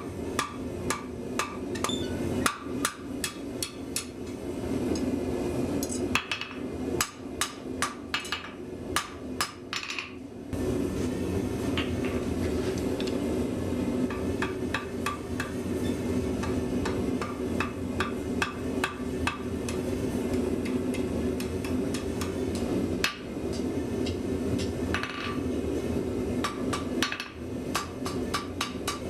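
Blacksmith's hammer striking steel on an anvil while forging, in quick runs of blows. About ten seconds in, a steady low hum starts underneath and the blows become sparser.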